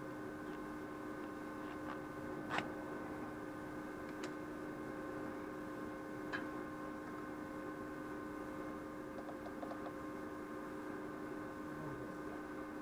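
Steady electrical hum made of several tones, with three sharp clicks in the first half and a few faint ticks later on.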